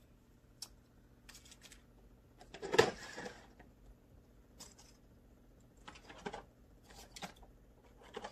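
Faint scattered clicks and rustles of small items being picked up and moved about, with one louder rustling clatter about three seconds in.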